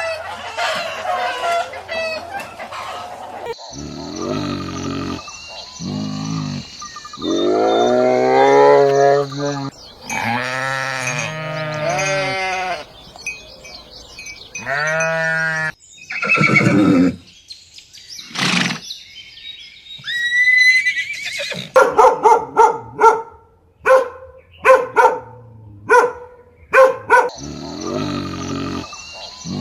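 A succession of farm animal calls: long wavering bleats of goats, then a run of short, sharp calls about once a second near the end.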